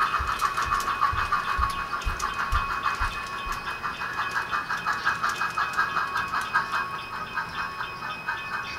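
Soundtraxx Tsunami DCC sound decoder in an HO brass N&W K1 steam locomotive model playing fast, even exhaust chuffs as the model runs with its passenger train. A few low clicks of the model's wheels on the track come in the first few seconds.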